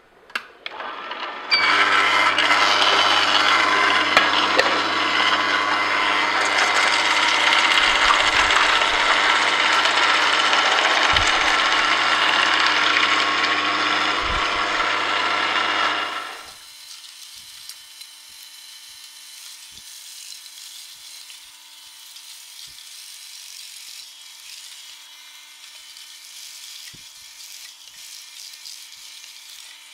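Angel twin-gear and Hurom vertical slow juicers running as carrots are fed in and crushed. A loud grinding over a steady motor hum lasts about fifteen seconds, then drops suddenly to a much quieter steady whir with a thin whine.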